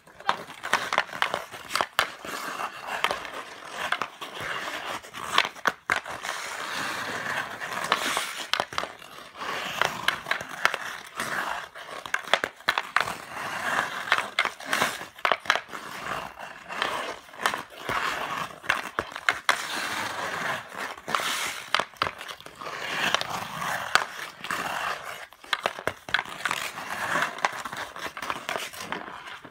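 Hockey skate blades scraping and carving on rink ice, with frequent sharp clacks of a stick on a puck during stickhandling, some of them much louder.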